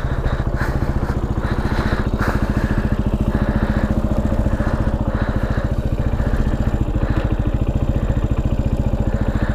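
Benelli TNT 125's single-cylinder four-stroke engine running steadily at a constant, low speed, its exhaust pulses evenly spaced.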